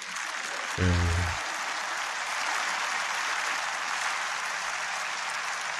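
Congregation applauding steadily through a pause in the sermon. A brief low voiced sound rises above it about a second in.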